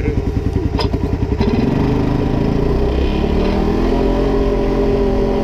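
Polaris off-road vehicle engine running at low speed with a rhythmic pulsing. About one and a half seconds in it picks up revs and runs smoothly and steadily under way.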